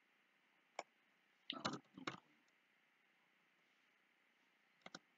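Faint clicks of computer input over near silence: a single sharp click about a second in and a quick double click near the end.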